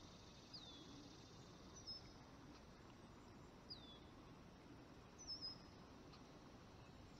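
Near silence, with a bird repeating short, high, downward-slurred chirps every second or two.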